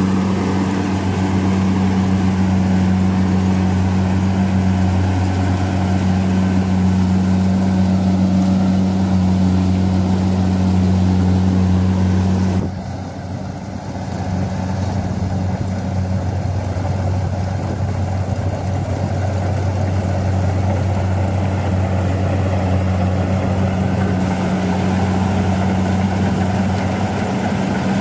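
Tracked rice combine harvester running steadily while it cuts rice, its engine holding an even hum. The sound drops briefly about halfway through, then returns.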